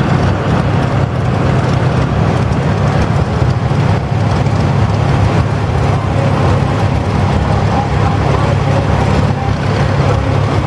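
Antique farm tractor engines running steadily as tractors drive slowly past one after another. A red Farmall goes by first, then a green John Deere two-cylinder tractor comes closest near the end.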